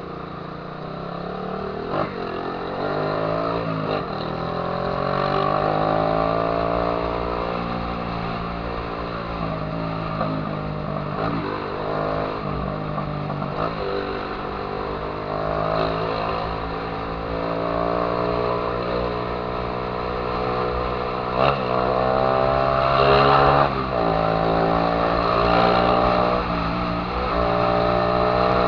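Honda CG Titan 150's single-cylinder four-stroke engine through a loud aftermarket Viúva Negra exhaust, revving up and dropping back again and again as the bike accelerates through the gears and eases off in traffic, with a few short sharp cracks from the exhaust.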